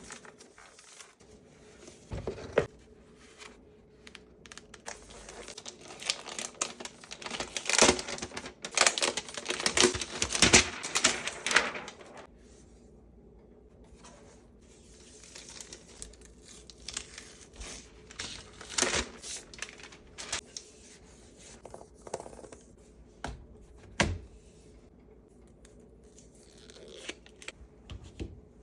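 Close-miked handling of laptop packaging: plastic and paper crinkling and tearing, with scattered sharp taps and clicks. It is busiest from about six to twelve seconds in, then thins to occasional clicks and one sharp tap near the end.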